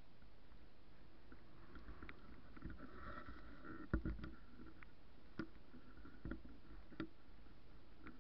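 Low rumble of wind on the microphone of a handheld camera, with a few sharp clicks and knocks of handling or steps on loose stone, the loudest about four seconds in.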